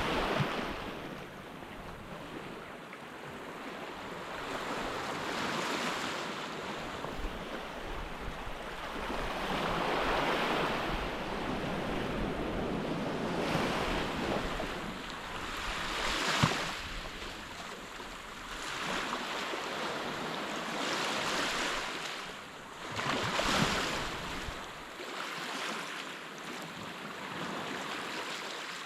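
Surf washing onto a sandy beach, swelling and fading every few seconds, with some wind rumbling on the microphone.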